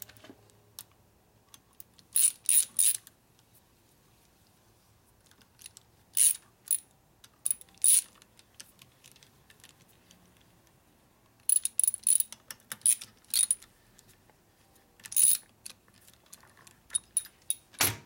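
Hand ratchet clicking in short runs of a few clicks each, separated by pauses, as the screws of an oil pump cover are turned in.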